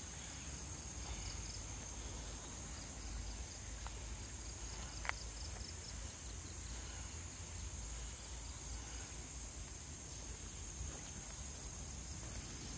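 Faint, steady insect ambience: a continuous high-pitched insect drone, with a low rumble underneath and two small clicks about four and five seconds in.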